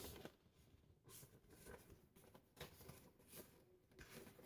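Near silence with a few faint, brief rustles and taps of handling, like paper or card being moved.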